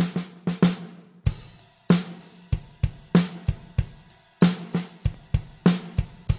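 Intro music played on a drum kit: a beat of sharp drum hits, a few per second, with cymbals ringing and low kick-drum strokes.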